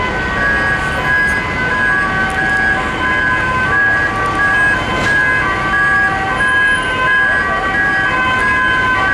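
Two-tone sirens of Dutch emergency vehicles, switching steadily back and forth between a high and a low note, over engine and traffic noise.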